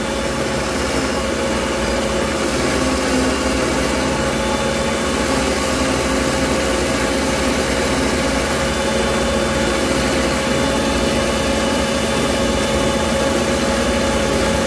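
Taurus 3 ring saw running steadily, its diamond-plated ring blade cutting into thick dichroic glass: a steady motor hum with one clear tone and a grinding hiss.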